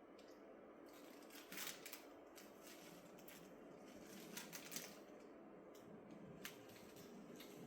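Faint scratching and rustling of a cat playing inside a box: a few short bursts of scrabbling, loudest about two thirds of the way in, over a quiet room.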